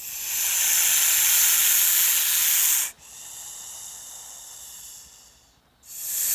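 An animal hissing: a long loud hiss of about three seconds, a quieter drawn-out hiss, then a second loud hiss near the end.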